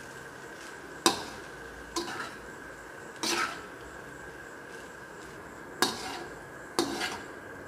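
Metal spatula knocking and scraping against an iron wok while tossing and mixing cooked rice, about five separate clanks and scrapes at uneven intervals, one of them a longer scrape.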